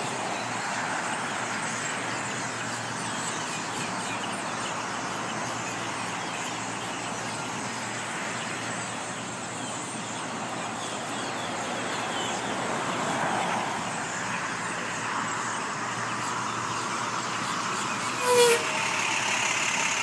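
Road traffic passing through a busy intersection, a steady rush of tyres and engines. Near the end a box truck pulls up close by, with a short loud hiss of its brakes.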